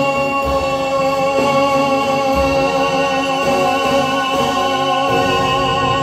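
Music: the end of a song, one long held chord with a few soft low beats.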